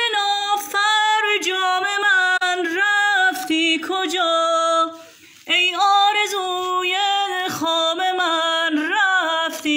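A woman singing a Persian song unaccompanied, holding long, ornamented, wavering notes, with a short breath pause about five seconds in.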